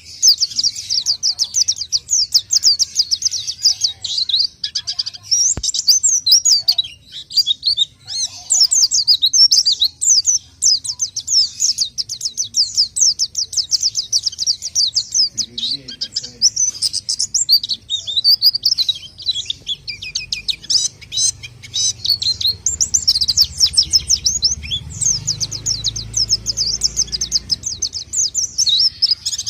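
White-eye (pleci) in full, energetic song, used as a lure call: a fast, high twittering of very short chirps that runs on with only a few brief breaks.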